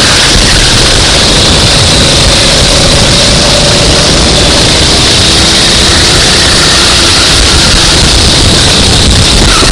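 Racing kart engine running at speed, buried in a loud, even rush of noise, with a faint engine tone that drifts up and down.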